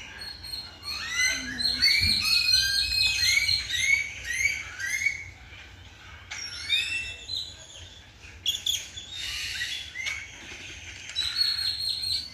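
Several birds chirping and whistling in quick series of short, arched notes, busiest from about one to five seconds in, with more bursts of calls near the middle and near the end.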